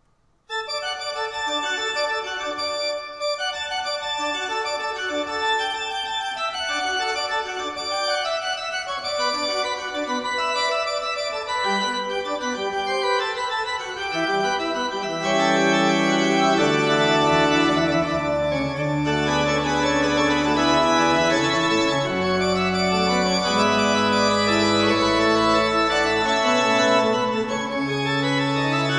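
Pipe organ starting a piece: quick runs of notes in the middle and upper range, then deep pedal bass notes come in about halfway through and the sound grows fuller and louder.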